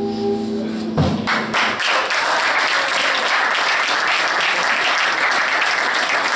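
A jazz quartet's last held chord cut off with a hit about a second in, then an audience applauding.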